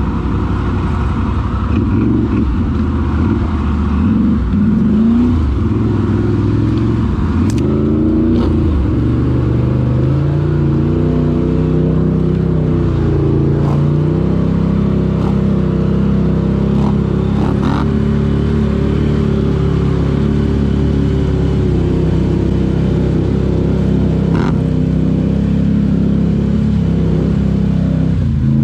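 Can-Am ATV engine running under load, heard close up from the handlebars as the quad drives through a flooded creek. The revs rise and fall in the first several seconds, then hold fairly steady, with a few sharp knocks along the way.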